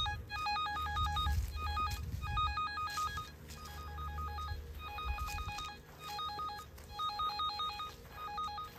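Handheld receiver of an underground wire locator beeping rapidly in runs with short breaks, as it picks up the transmitter's signal on a buried electrical cable. The beeping means the receiver is near the wire. A low rumble runs underneath.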